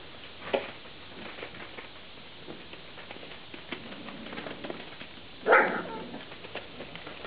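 Vizsla puppies scrabbling and padding over newspaper, a light patter and rustle of small paws, with one short, louder puppy yelp about five and a half seconds in.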